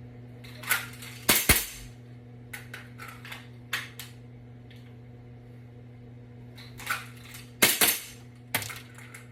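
Elite Force 1911 airsoft pistol firing: two sharp cracks in quick succession about a second and a half in, and another quick pair near the end. Lighter clicks and knocks from the pistol being drawn from a Blade Tech holster come before and between the pairs.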